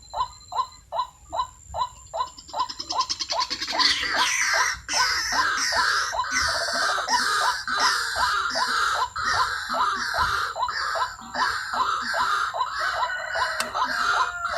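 White-breasted waterhen calls: a steady run of about three hoarse notes a second, joined about four seconds in by a denser, higher cackling chorus that keeps going.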